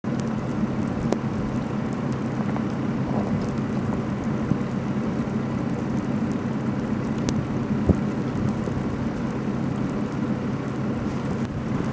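A car engine idling steadily, a low even rumble under a constant hiss of noise, with a few faint clicks.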